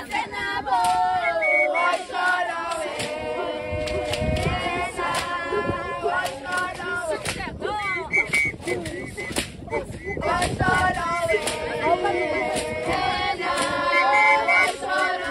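A group of voices singing a traditional Zulu song together, unaccompanied, with sharp percussive hits scattered through it.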